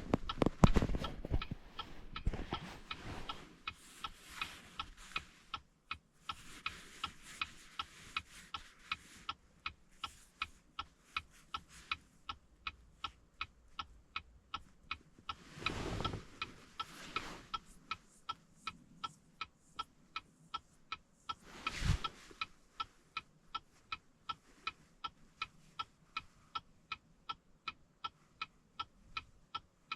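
Steady, evenly spaced electronic ticking, about two to three ticks a second, each tick a short pitched click. Rustling and handling noise comes and goes, and there is a single thump about 22 seconds in.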